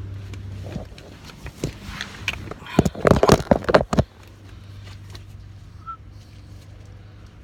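Small hard parts being handled: rattling and clicking, with a dense run of loud clicks about three seconds in that lasts about a second, over a low steady hum.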